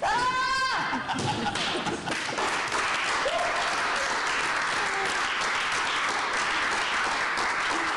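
A high shout or whoop at the start, then a small group of onlookers applauding and cheering steadily.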